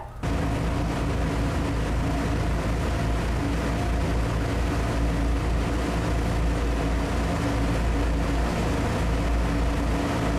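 Passenger ferry under way: its engine running steadily, a constant low drone with a steady hum, over an even rushing wash of water and wind.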